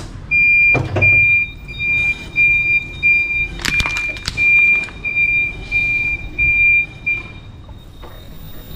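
Forklift warning beeper sounding a steady high beep about twice a second, stopping near the end, as the forklift moves over the crushed toy. A few sharp cracks cut through it, the loudest about halfway, as the tyre rolls onto the plastic pieces.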